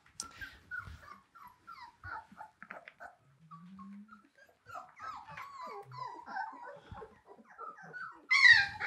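German Shorthaired Pointer puppies whining and whimpering in many short, high squeaks, with one louder cry near the end.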